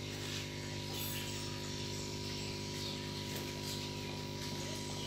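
Steady low hum made of several fixed tones, like an electrical appliance or machine running, with faint scattered light ticks and scratches over it.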